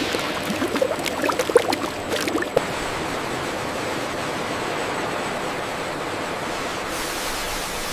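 A thick stream of oil pouring into a stainless steel tank: a steady rushing splash, with a flurry of sharp splashing plops in the first two and a half seconds before it settles into an even rush.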